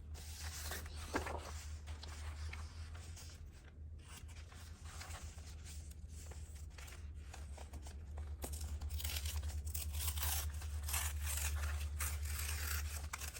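Paper being torn slowly by hand, a long drawn-out rip that grows louder and rougher about two-thirds of the way in.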